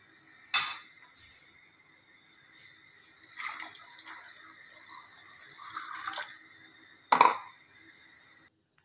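Water poured from a plastic container into a steel bowl of cubed yam, splashing over the pieces for about three seconds. A sharp knock comes just before it, and another near the end.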